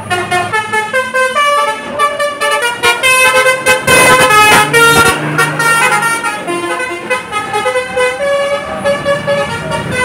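Basuri telolet horn on a passing bus playing a fast multi-note melody, its notes stepping up and down. The noise of a bus driving past close by swells under it about four seconds in.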